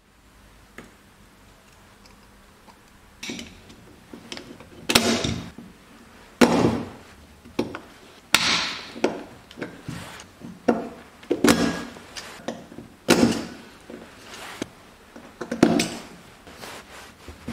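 Small steel coil springs and metal parts being handled and fitted into a large steel gear on a Vespa GS150 gear cluster, giving a dozen or so irregular metallic clinks and knocks with a short ring.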